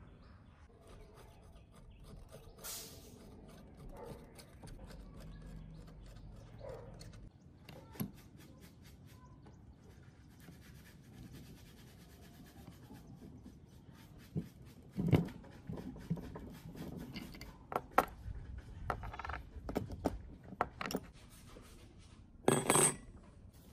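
Metal hand tools and parts of a Makita M2400B cut-off saw clicking, knocking and scraping as the saw is taken apart, with a gear puller working the cooling fan off the motor's armature shaft. A few louder, sharp knocks come in the second half.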